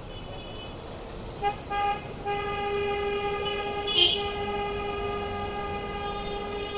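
A vehicle horn in street traffic: two short toots about a second and a half in, then one long held blast lasting about four and a half seconds. A sharp click about four seconds in, the loudest moment, and a low rumble of traffic underneath.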